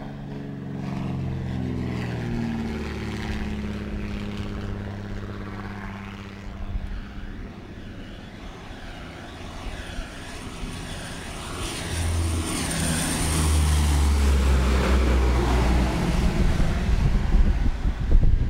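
A small propeller plane passes overhead, its engine note falling in pitch as it goes by. Then a P-3 Orion air tanker's four turboprop engines grow louder and heavier as it flies low over on a retardant drop.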